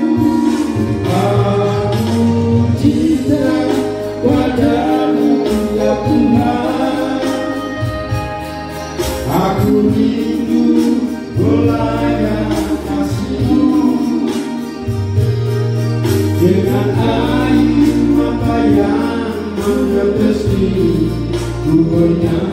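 A man singing a slow song into a handheld microphone over amplified backing music with a steady bass line.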